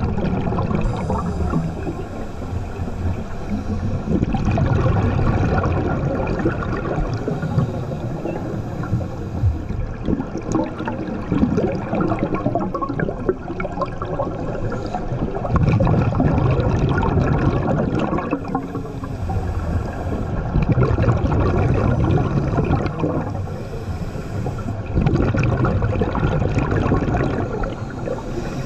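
Scuba breathing heard underwater: exhaled bubbles from a diver's regulator gurgle out in bursts roughly every four to five seconds over constant water noise.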